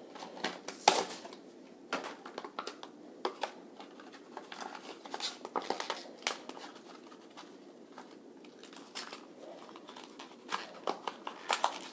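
Plastic blister pack of a Hot Wheels die-cast car being pulled apart by hand: the stiff plastic bubble crackles and the cardboard card tears in a run of irregular crinkles and snaps. The sharpest snap comes about a second in.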